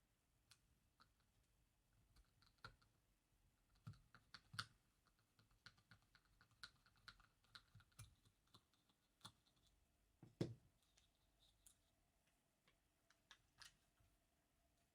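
Scattered faint clicks and light taps as the small parts of an airsoft 1911 pistol are handled during work on its hammer, with one louder knock about ten and a half seconds in.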